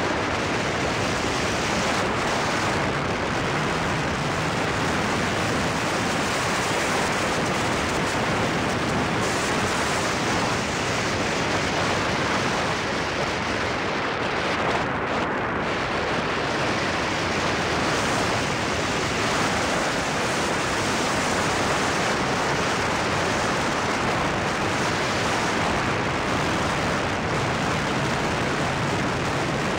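Steady rushing wind on an exterior car-mounted camera's microphone while the car drives at track speed, with tyre and road noise beneath. The rush holds an even level throughout, with no clear engine note standing out.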